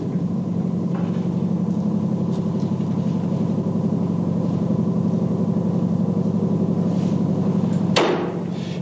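Steady, low mechanical drone of running machinery with a fast flutter, like an engine running. A single sharp knock comes about eight seconds in.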